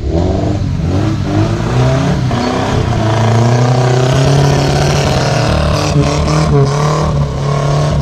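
Engines of off-road 4x4 vehicles running and revving as they drive in, the pitch rising and falling with the throttle.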